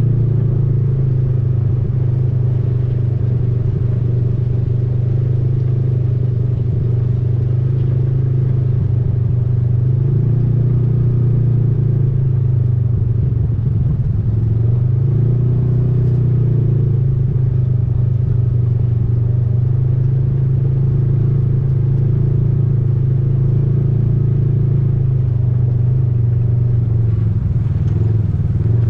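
Off-road vehicle engine running steadily under way, a constant low drone. Its pitch dips and rises briefly about halfway through as the speed changes.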